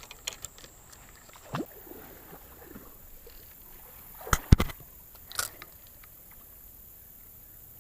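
A few scattered clicks and knocks over a quiet background, the loudest a sharp knock about four and a half seconds in.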